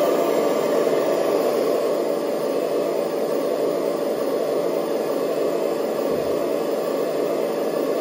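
Hydraulic RC excavator, a Kabolite model of the Liebherr R 970 SME, running with a steady whirring noise as it moves its arm; the noise cuts off abruptly at the end.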